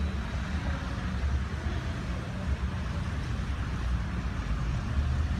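Steady low rumble of background noise with a faint hiss above it, no distinct events.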